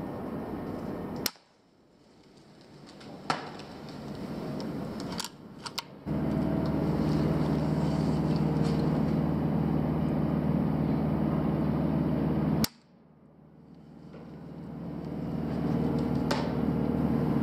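Two sharp shots from a pre-charged pneumatic air rifle, about a second in and again near the end, with a few fainter clicks after the first. A steady low hum comes in about six seconds in.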